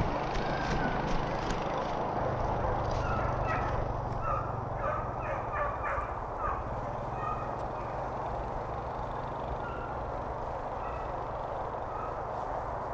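Footsteps crunching through dry grass and fallen leaves, over a steady low hum, with a cluster of faint, short, high calls in the distance from about three to seven seconds in.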